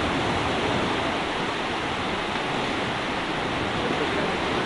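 Sea waves breaking and washing up on the beach, a steady rush of surf.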